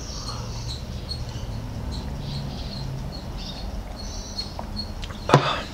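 A small animal chirping repeatedly in short high notes, about two to three a second, over a low steady hum. A brief loud sound comes about five seconds in.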